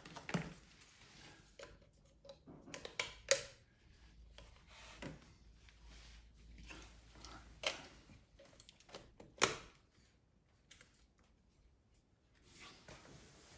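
Light plastic clicks and taps from a Heat Mat WiFi thermostat's housing being handled and fitted onto its wall-mounted back plate. A few sharper clicks stand out, spaced a couple of seconds apart, around the middle of the stretch.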